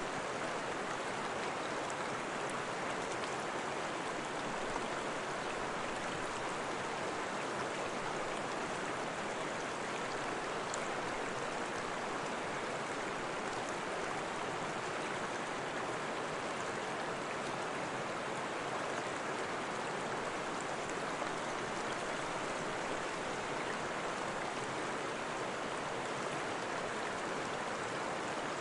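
Steady rushing of running water, like a stream, holding an even level throughout.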